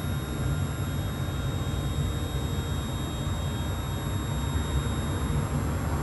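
Stepper motors of a Langmuir Systems Crossfire Pro CNC plasma table driving the torch gantry along a straight line in a dry run, with the torch not firing: a steady, thin high whine over a steady low hum.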